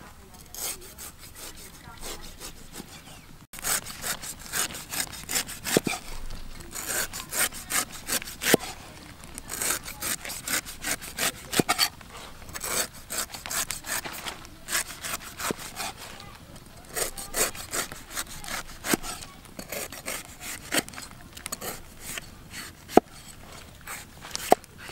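Cleaver slicing the thick, knobbly rind off a jackfruit: a fast run of short cutting strokes in bunches, fainter for the first few seconds.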